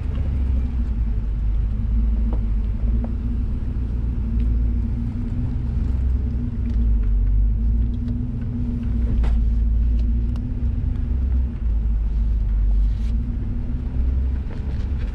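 A Ford Raptor's 6.2-litre V8 running low and steady as the truck crawls up a steep, rocky hill climb, with a deep exhaust rumble and a few faint clicks.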